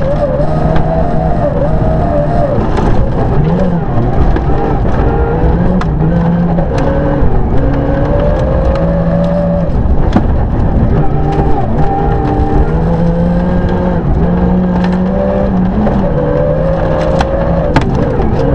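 Rally car engine heard from inside the cockpit, pulling hard at high revs, its pitch climbing and dropping every couple of seconds through gear changes and throttle lifts. Gravel rumbles under the tyres, with occasional sharp clicks of stones striking the car.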